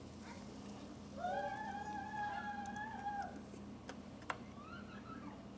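A pet animal's long, level cry lasting about two seconds, starting about a second in, then a shorter rising cry near the end, with two sharp clicks between them.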